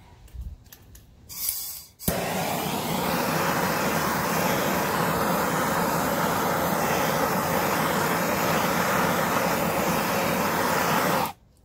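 Handheld gas torch lit about two seconds in, then a steady flame hiss for about nine seconds as it is passed over wet acrylic pour paint, cutting off suddenly near the end.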